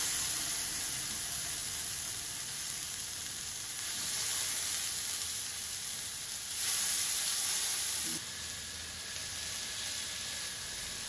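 Masala-coated kingfish (seer fish) steaks sizzling as they shallow-fry in hot coconut oil in a flat pan. The sizzle grows louder for a second or two about six and a half seconds in, then settles back.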